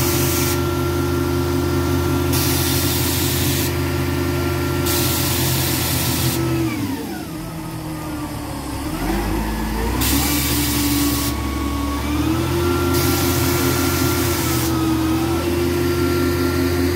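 Truck-mounted crane's engine running at raised revs. About seven seconds in it drops to idle, then revs back up about three seconds later and rises again a little after that. A hiss switches on and off over the engine every second or so.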